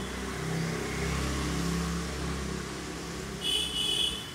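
A motor vehicle's engine running steadily on a wet street, with a faint hiss over it. A brief high-pitched chirping call sounds about three and a half seconds in.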